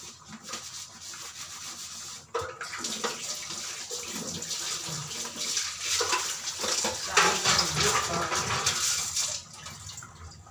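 Chicken curry gravy bubbling and sputtering in a kadai on the stove, growing louder a little past the middle and easing off near the end.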